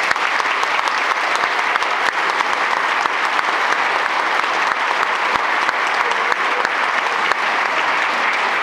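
Applause from a small group of people clapping steadily.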